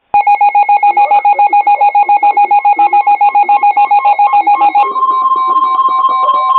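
Emergency alert attention tones for a test tornado warning: a loud, rapidly pulsing electronic tone, about eight beeps a second, that about five seconds in switches to a steady, higher tone with a fainter pulsing tone beneath it.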